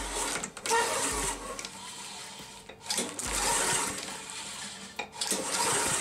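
Honda push mower's small OHV engine being pull-started, cranked over several times on the recoil starter without firing. The engine has no spark.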